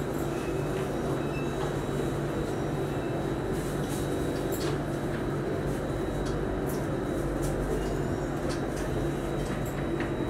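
Steady running noise inside a Singapore Circle Line MRT train car as it comes into a station: a continuous low hum with a faint high whine and occasional light clicks.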